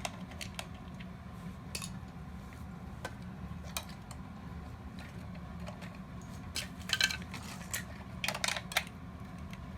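Hard plastic parts of a toy robot clicking and clattering as it is taken apart by hand, scattered taps with a busier run of sharper clicks in the last few seconds.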